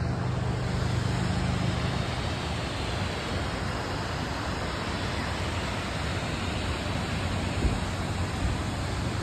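Car driving: steady road and tyre noise with a low engine hum that fades about two seconds in, and a couple of low bumps near the end.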